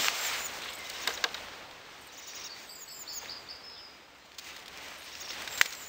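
Hand pruning shears snipping rose canes: a few short sharp snips, a pair about a second in and more near the end, over a quiet outdoor background. A bird chirps briefly in the middle.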